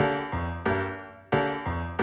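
Background music: a short phrase of struck, fading keyboard notes, repeating about every second and a third.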